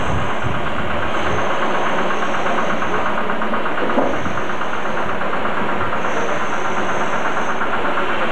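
An engine running steadily, a continuous mechanical drone with a fine rapid ticking texture and one small click about four seconds in.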